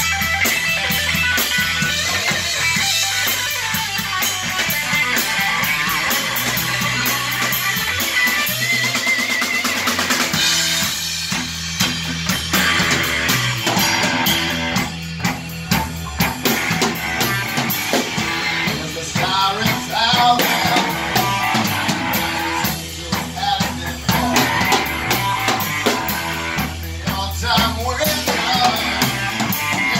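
A rock band playing live in a room: electric guitar lead over bass guitar and a drum kit, with sung vocals in the later part.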